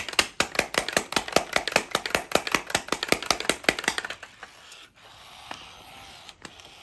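Original 1998 Furby's internal motor and gear train running after a reset, clicking rapidly about seven or eight times a second for about four seconds, then settling into a quieter whir with a click or two. The gears, stiff from years of storage, are starting to move as the toy wakes up.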